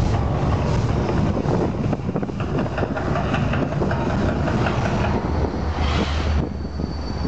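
The Mirage volcano show erupting: a loud, continuous rumbling roar full of crackle from its fire and water effects. The hissing upper part cuts off suddenly about six and a half seconds in, leaving a low rumble.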